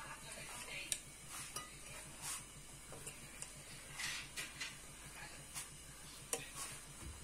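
A hand tossing and rubbing mechlouch pasta strips in a metal pot: scattered soft rustles and light clicks, at irregular moments, as the pieces brush and tap against the pot.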